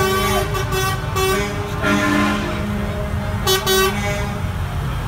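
Truck horns sounding in several short blasts over the low rumble of truck engines passing slowly.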